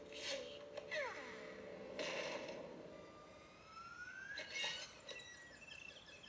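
Cartoon soundtrack heard faintly from a TV: a few short swishes and whistle-like pitch glides, one falling about a second in and one rising slowly toward the end.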